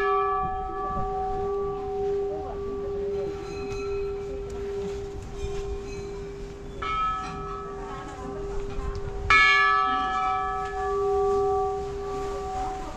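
Hanging metal temple bell ringing with a long, slowly fading tone, struck again about seven seconds in and once more about two seconds later.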